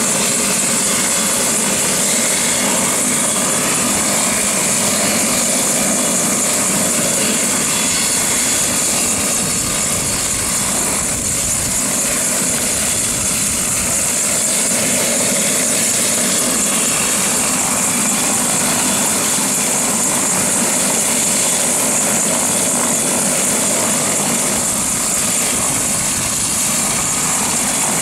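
Bell 206-type light turbine helicopter running on the ground with its rotors turning, a steady high turbine whine over the rotor noise.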